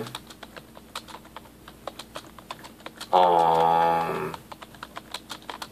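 Computer keyboard typing: irregular, quick key clicks throughout. About three seconds in, a held hum, slightly falling in pitch and lasting just over a second, is the loudest sound.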